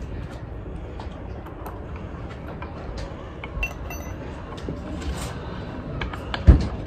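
Small clicks and clinks of children's chair parts and hardware being handled during assembly, with one louder knock near the end. A steady low street noise runs underneath.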